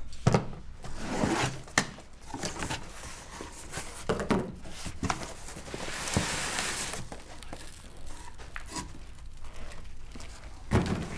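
Cardboard shipping box being opened by hand: flaps rustling and scraping with scattered knocks, and a longer scraping rustle about six seconds in as the flaps are pulled open.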